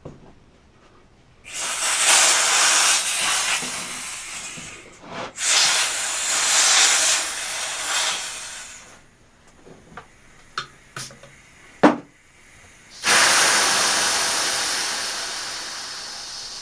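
Compressed air hissing out of a small portable air compressor in three bursts: two of a few seconds each, then a sudden third that slowly trails off. A few sharp clicks come between the second and third bursts.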